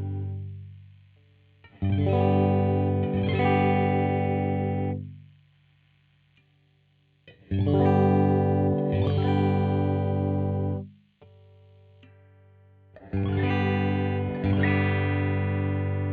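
2003 Godin SD 24 electric guitar playing sustained chords through effects. A ringing chord fades out at the start, then new chords are struck about every five and a half seconds, each left to ring for around three seconds before being stopped.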